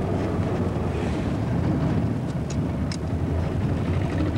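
Moving vehicle heard from inside the cabin: steady engine and road rumble, with two brief high clicks about two and a half and three seconds in.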